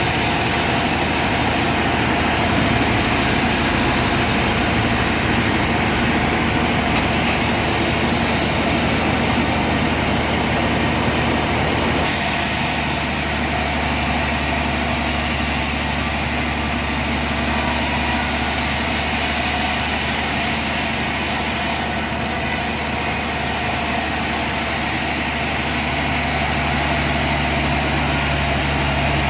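Sawmill machinery running steadily with a loud, continuous hum and hiss; about 12 seconds in the sound shifts abruptly, turning hissier and higher.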